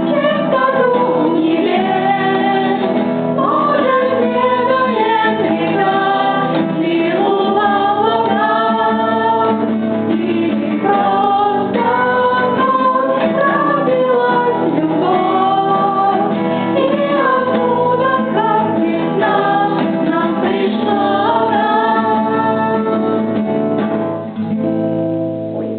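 A song with a woman singing over a plucked guitar.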